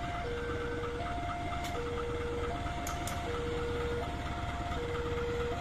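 Level-crossing warning alarm sounding a steady high-low two-tone, the pitch switching about every three quarters of a second, over the low steady running of the CC 203 diesel-electric locomotive shunting ballast wagons.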